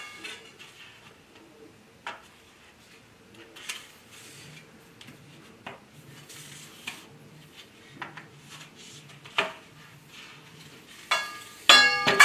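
Steel grow-tent frame tubes knocking and clinking as the cross pieces are fitted into the frame connectors, a handful of separate knocks a second or so apart. Near the end a tube is struck harder and rings briefly, twice.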